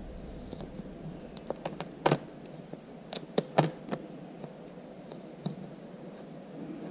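Fingers pressing and smoothing a vinyl sticker onto a fridge door: a scatter of light clicks and crackles, most of them between about one and four seconds in.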